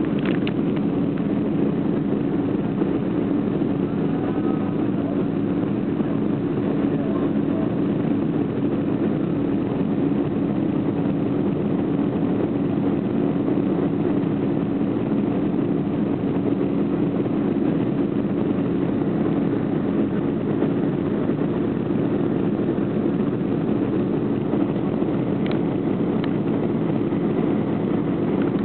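Airliner engines at takeoff power, heard from inside the passenger cabin: a loud, steady drone with a steady low hum running through it.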